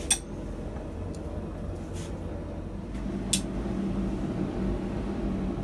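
A steady low mechanical hum, joined by a steady higher hum about three seconds in, with a few light metallic clicks, the sharpest about three and a half seconds in.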